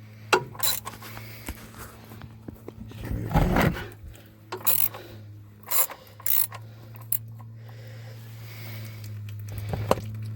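Socket ratchet on a 17mm socket clicking in short spells as it backs out an oil drain plug, with a louder scraping clatter about three and a half seconds in. A steady low hum runs underneath.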